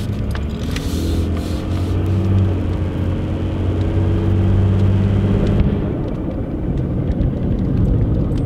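Truck driving, heard from inside the cab: a steady engine hum with road noise. The engine note climbs a little over the first two seconds, holds, then eases off about six seconds in as the truck slows.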